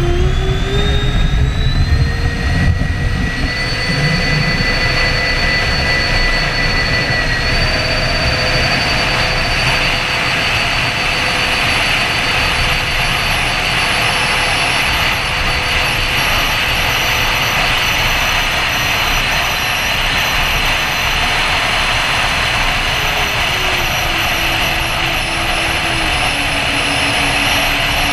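Twin electric ducted fans of a Freewing A-10 RC jet, whining as they spool up over the first few seconds. They then hold a steady high pitch, step up slightly about seven seconds in, and drop to a lower pitch about 23 seconds in as the throttle is eased back.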